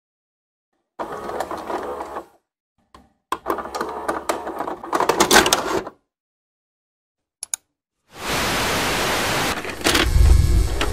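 Videocassette recorder sound effect: two stretches of mechanical clattering and whirring as a tape is loaded, a short click, then a steady tape hiss from about eight seconds in, with a deep thump about ten seconds in as playback starts.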